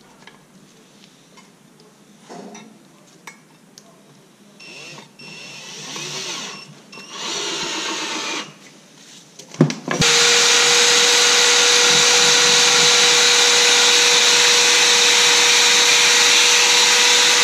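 Power tools wire-brushing surface rust off a sand-blasted steel suspension arm. First a cordless drill runs in short uneven bursts. From about ten seconds in, a second, faster tool runs loudly and steadily at one constant pitch until near the end.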